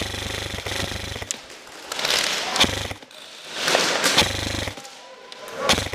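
High-speed airsoft electric gun firing full-auto: a fast buzzing rattle in three bursts, the first about a second long at the start, then a short one about two and a half seconds in and another about four seconds in.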